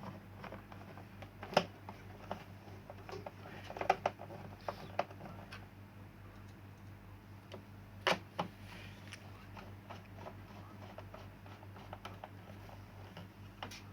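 Hand-tool work on an LCD TV's stand: scattered clicks and knocks of screws and a screwdriver against the plastic stand and casing as the four stand screws go in, loudest about eight seconds in. A low steady hum lies underneath.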